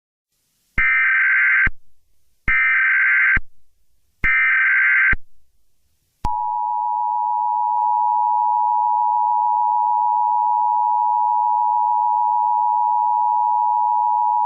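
Emergency Alert System tones: three short bursts of SAME header data, each just under a second, then the two-tone EAS attention signal held steady for about eight seconds. They signal that an emergency alert message follows.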